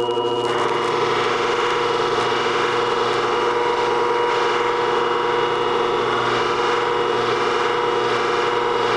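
Beauty shear blade held against the spinning polishing pad of a shear-sharpening machine: the motor hums steadily, and the blade rubbing on the pad adds a steady hiss that comes in just after the start. The edge is being polished to take out nicks near the tip.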